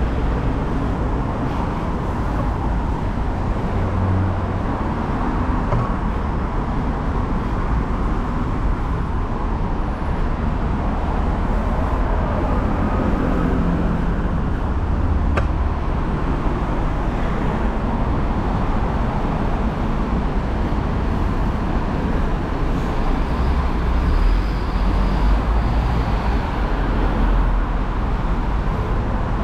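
Steady urban road-traffic noise from passing vehicles, an even wash of sound with a strong low rumble.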